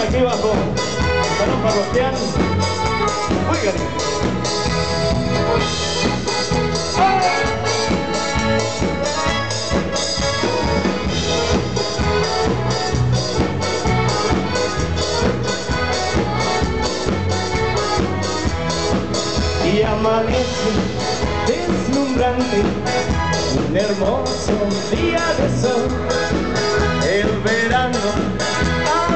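Live dance band music with a steady beat, played loud in a hall.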